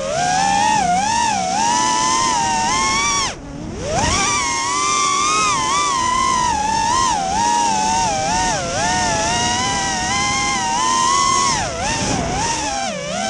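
Brushless motors of a five-inch FPV racing quadcopter (Racestar BR2205 2600KV with Kingkong 5x4x3 props) whining from its onboard camera, the pitch wavering constantly with the throttle. About three and a half seconds in the whine drops away as the throttle is cut, then climbs steeply back on a punch-out, with another brief dip near the end.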